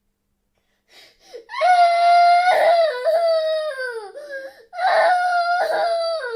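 A young girl crying: after about a second of silence, two long high-pitched wails, each falling in pitch at its end, with short sobbing catches before and between them.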